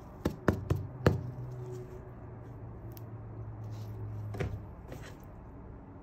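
Gloved hands handling a crusty baked sourdough loaf: a quick run of four sharp crackles and taps in the first second, another about four and a half seconds in, and a faint one just after, over a low steady hum.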